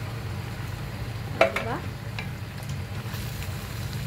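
Canned chopped tomatoes poured over lamb shanks in an enamelled cast-iron braiser and stirred in with a wooden spatula, the hot pan sizzling, over a steady low hum.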